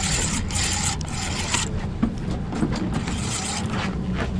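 Boat engine idling, a steady low hum, with bursts of hiss over the first second and a half and a couple of short knocks about two seconds in.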